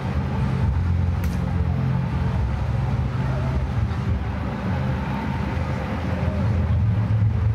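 Hot-air balloon propane burners firing, a steady low roar that swells and eases over a crowd's murmur.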